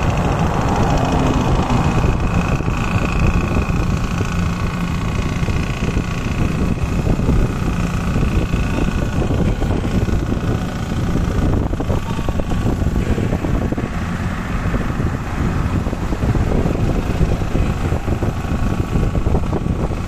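Steady engine drone and road noise of a vehicle driving along a highway.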